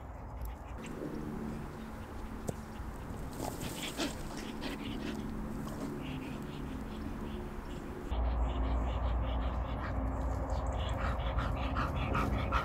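Outdoor wind noise and faint sounds from a bull terrier running after a thrown stick. About eight seconds in, a steady low rumble of wind on the microphone sets in suddenly.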